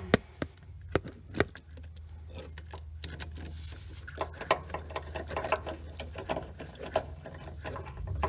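A few sharp metal clicks as a socket goes onto the starter's power-terminal nut, then from about three seconds in a run of quick, uneven ratchet clicks as the socket wrench turns the nut down onto the terminal.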